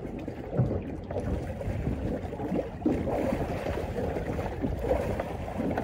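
Choppy sea water slapping against a small boat's hull in irregular splashes, with wind gusting on the microphone.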